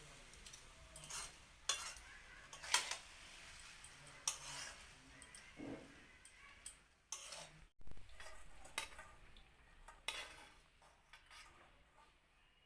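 Metal spatula scraping and clinking against a kadai (Indian wok) as fried rice is stirred to mix in ghee, in irregular strokes every second or so.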